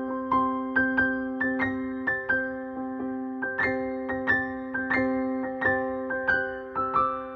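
Gentle keyboard background music: a steady run of single struck notes, each fading away, over sustained low tones.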